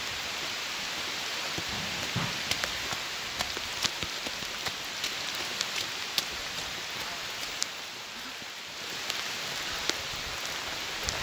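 Steady rain falling, a dense even hiss with scattered sharp ticks of single drops striking close by.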